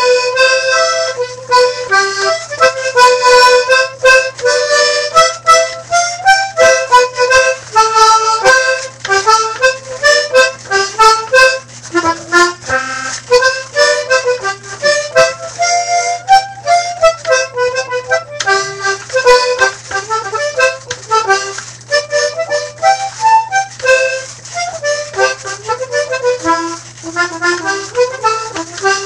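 Accordion playing a fast, lively melody of quick short notes, with a steady low hum underneath.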